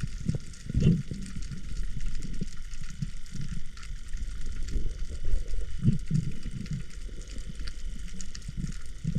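Underwater sound picked up by a camera in its housing: irregular low, muffled knocks and water movement, over a constant fine crackle.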